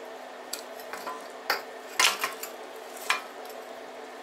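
Welded steel-tube motorcycle rear frame being handled and shifted: about five short metal clanks and knocks, the loudest about two seconds in, over a steady low hum.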